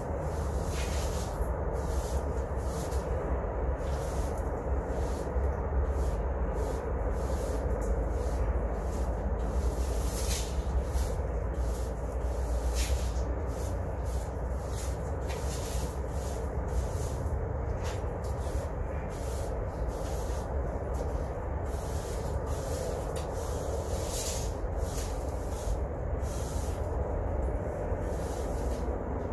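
Push brooms sweeping a concrete slab: repeated short brushing strokes, roughly one a second and irregular, over a steady low rumble.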